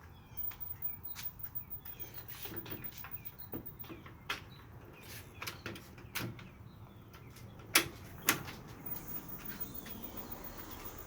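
Irregular footsteps with light clicks and knocks as someone walks up to a front door, including two sharper knocks close together about eight seconds in. Birds chirp faintly at the start.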